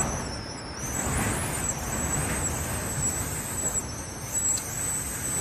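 Typhoon wind blowing hard in gusts, a steady rushing roar that swells and eases.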